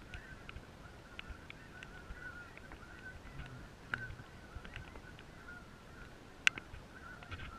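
A flock of geese honking in a faint, steady chorus of overlapping calls. There is a single sharp click about six and a half seconds in.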